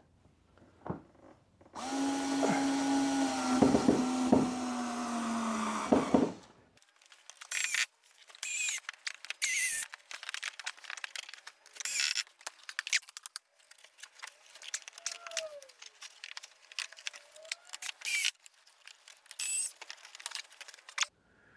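Power drill driving a screw through a wooden washer block into the lintel for about four seconds, its pitch sagging slightly under load. It is followed by scattered clicks, knocks and rustling of handling.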